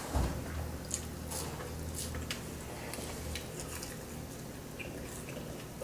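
People eating chicken nuggets: quiet chewing with scattered small clicks and taps over a low steady hum.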